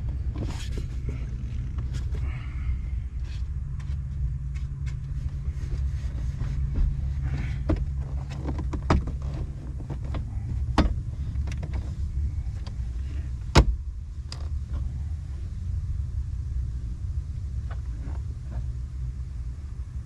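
Steady low rumble under scattered light clicks and knocks from hands working on plastic car interior trim. The sharpest knock comes about two-thirds of the way through.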